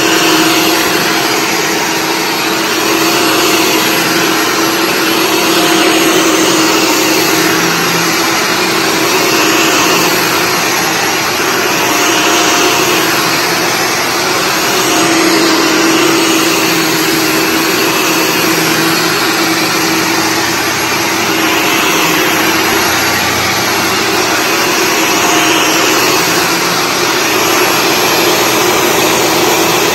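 Shark Stratos upright vacuum running on carpet with its brushroll spinning. Its steady motor hum swells and eases every few seconds as it is pushed back and forth.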